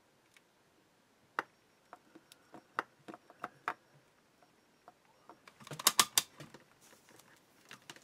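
Light, scattered clicks and taps of battery cells and small parts being handled on a work table, with a quick cluster of louder clicks about six seconds in.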